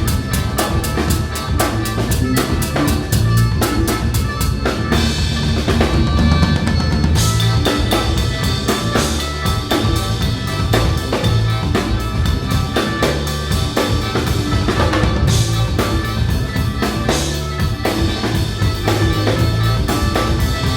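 Live band music driven by a full drum kit, with kick, snare and cymbals keeping a fast, busy beat over sustained bass and pitched instrument lines.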